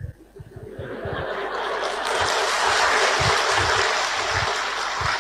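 Audience applause mixed with laughter, swelling about a second in and staying loud.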